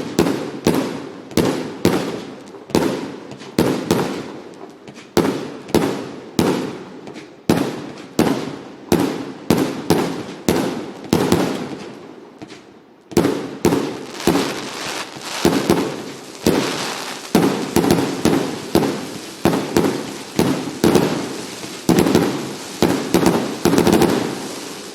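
Fireworks going off in a steady series of sharp bangs, about two a second, each followed by a short ringing tail. After a brief lull about twelve seconds in, the bangs come faster and overlap, then thin out near the end.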